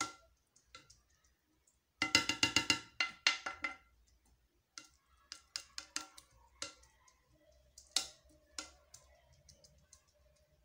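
White plastic spoon tapping and scraping against a terracotta clay dish while stirring and breaking up steamed vermicelli. A quick run of ringing taps comes about two seconds in, then scattered single clicks.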